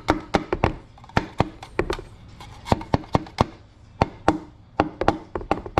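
Wooden mallet gently tapping a piston down into the cylinder bore of a Jeep 3.8 V6 engine, easing the piston rings past the top of the bore. Quick light wooden taps in short runs, several a second, with brief pauses between runs.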